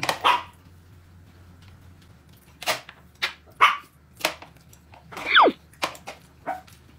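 A dog barking in short, separate barks, one of them a call that slides down in pitch about five seconds in.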